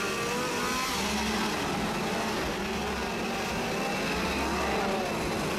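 Chainsaw engines revving up and down amid crowd noise.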